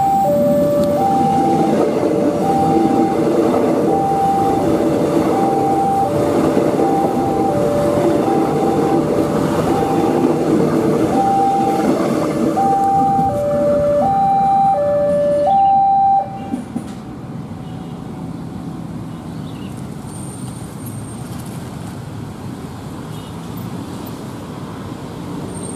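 Level-crossing warning signal alternating between a high and a low electronic tone, about one change every 0.7 s, over the noise of a KAI airport train running past. The signal and the loudest train noise stop about 16 seconds in, leaving quieter traffic noise as cars cross.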